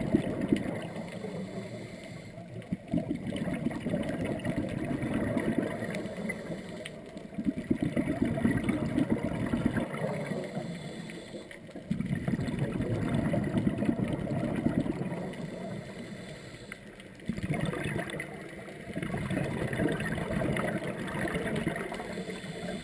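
Scuba diver's breathing underwater: rumbling, gurgling surges of exhaled bubbles from the regulator, repeating about every four to five seconds with quieter stretches between.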